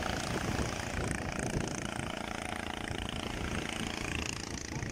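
An engine running steadily, with a low rumble under it.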